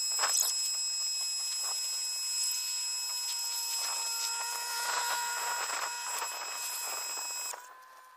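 Portland 1750 psi electric pressure washer running with a steady high whine over the hiss of the spray; the motor cuts off about seven and a half seconds in.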